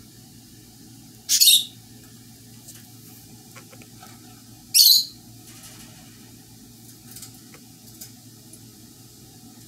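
Two short, shrill chirps about three and a half seconds apart, over a steady low hum.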